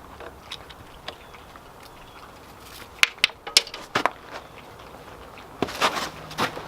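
A few sharp clicks and knocks about three seconds in, then a short scraping, crunching rustle near the end, over a low steady background.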